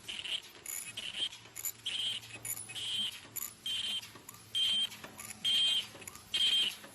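KF94 2D mask-making machine running in production, with a short high-pitched squeal about once a second as each mask cycles through, over a low steady machine hum.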